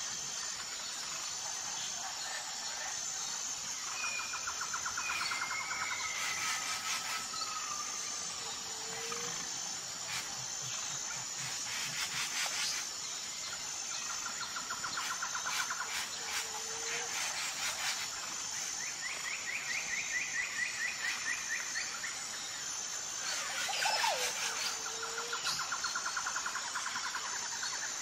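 Birds calling, with rapid trilled phrases and short chirps every few seconds, over a steady high chirring of crickets.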